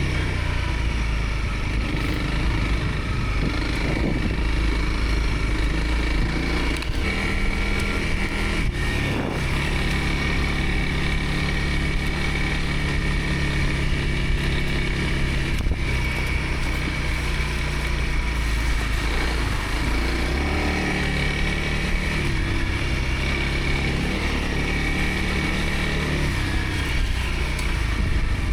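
Dual-sport motorcycle engine running as the bike is ridden along a dirt trail, its revs rising and falling several times. A few short knocks sound along the way.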